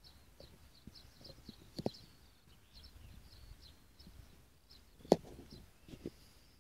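European bee-eaters calling: short, faint, high calls repeated over and over. Two sharp knocks cut in, a small one about two seconds in and a loud one about five seconds in.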